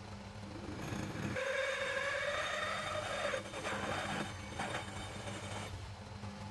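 Metal lathe running with a steady low hum while a twist drill in the tailstock bores into the end of the spinning metal workpiece. About a second in the cutting starts: a whining, squealing tone over a scraping noise, with a few short scratchy clicks. It stops near the end as the drill is withdrawn.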